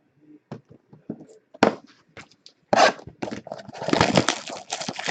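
Trading-card pack wrappers and cards being handled: a few sharp crinkles and clicks, then a denser crackle of tearing and crumpling near the end.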